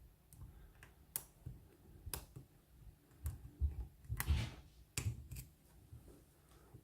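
Irregular light metallic clicks and a short scrape from a lock pick and tension wrench working the pins of a Lockwood oval cylinder lock.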